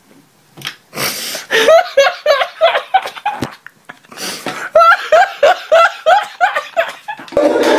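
A man laughing hysterically in rapid, high-pitched bursts of about four a second, with a brief pause for breath midway. A denser, noisier sound begins near the end.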